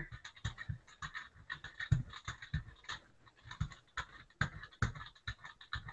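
Rubber brayer rolled over acrylic paint on a gelatin printing plate, giving a faint, rapid, irregular string of clicks.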